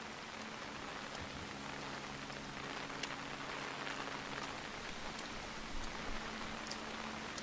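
Steady rain falling, with scattered single drops striking a surface, swelling slightly over the first few seconds.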